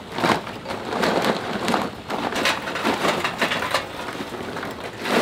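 Charcoal poured from a bag into a metal chimney starter: a dense, irregular clatter of pieces rattling against the metal and each other.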